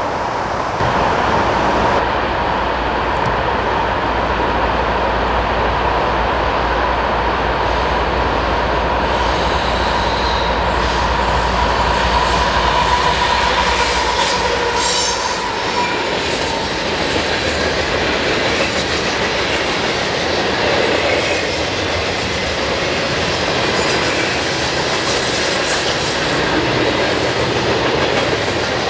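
Freight train passing on the mainline: steel wheels running on the rails in a loud, steady rush of noise. A steady high tone runs through the first half. A deep rumble drops out about halfway through, and the cars keep rolling by.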